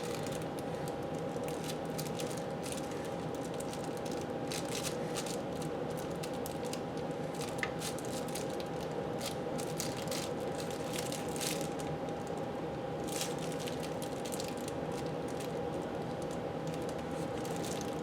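Faint crinkling and squishing of a plastic bag as a bag-covered finger spreads thermal paste over a desktop CPU, with scattered soft clicks. A steady background hum with a thin whine runs under it.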